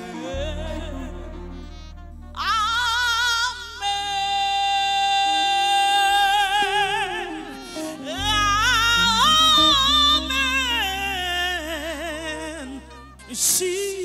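A woman singing a gospel song live over a band, her voice wavering with vibrato and holding one long note in the middle, with bass notes underneath.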